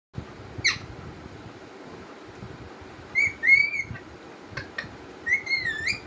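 Young parrot giving a short falling chirp, then two wavering whistled calls, one around the middle and one near the end, with a couple of faint clicks between them.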